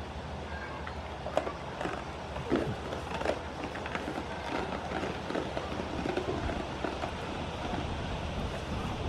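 Goats crunching and nibbling food from a person's hands, with irregular sharp clicks and knocks and some rustling, over a steady low hum.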